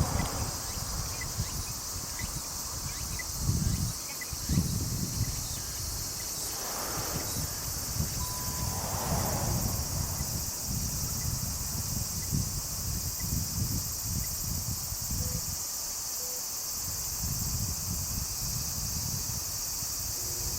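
Steady high-pitched insect chorus, with a gusty low rumble of wind on the microphone.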